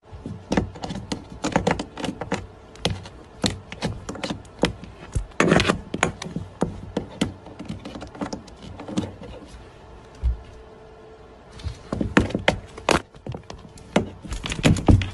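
Irregular clicks, taps and scrapes of a plastic charger plug being fumbled against a wall outlet, mixed with knocks of the phone being handled. There is a short lull about two thirds of the way through.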